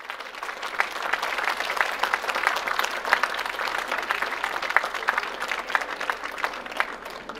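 Concert audience applauding, many hands clapping densely. The applause tails off near the end.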